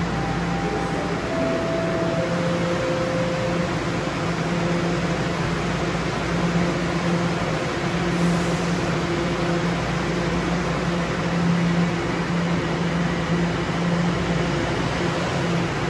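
Bombardier Toronto Rocket subway train's door-closing chime, three steady notes stepping down in pitch over the first few seconds, followed by the train's steady low hum as it stands at the platform with doors shut.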